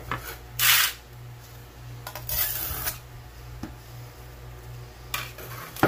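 A flat scraper and a metal casting flask handled in a metal tray of packed petrobond sand. There are two short rasping scrapes, one about half a second in and a longer one around two seconds in, then a couple of light metallic clicks near the end.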